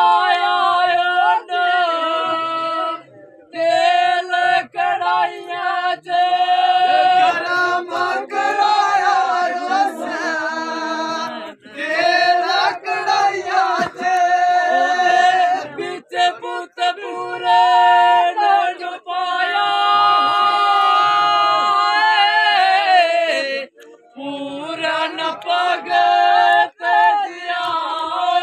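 Male voices singing a kissa, a sung folk tale, in long held, wavering notes with short breaks for breath.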